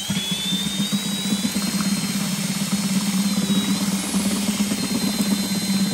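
A small electric mixer or drill-driven whisk running steadily as it mixes calf milk replacer, a low motor hum with a thin high whine over it.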